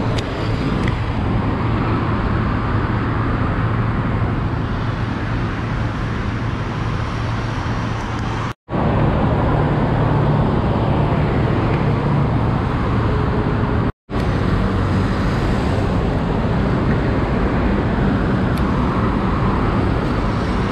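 Steady road traffic noise, a continuous low rumble with hiss over it. It cuts out briefly twice, once a little before halfway and once about two-thirds through.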